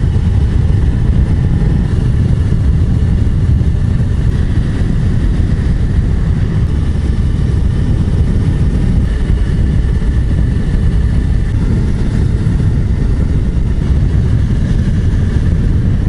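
Suzuki GSR250 motorcycle's 248 cc parallel-twin engine running at steady road speed while riding, a continuous low rumble without revving or gear changes.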